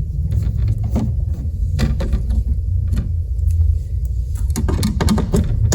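Steady low rumble underneath, with scattered light clicks and taps of a Phillips screwdriver backing out small screws that hold a circuit board.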